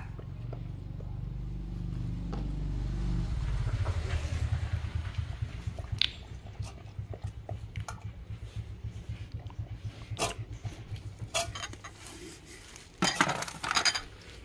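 A dog eating from a stainless-steel pot, a run of rhythmic lapping and chewing with sharp clinks of metal. Near the end comes a louder clatter of china bowls on a metal tray.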